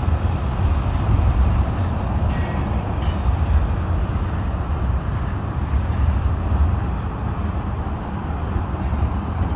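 Freight train rolling past on a bridge: a steady low rumble of the cars' wheels on the rails, with a few faint brief clicks.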